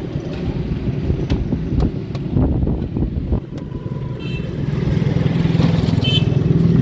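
Metal knocks and clatter from a street popcorn machine's kettle as it is cranked and tipped over to dump the popcorn, over a steady low rumble of roadside traffic with motorcycles. The rumble grows louder in the second half.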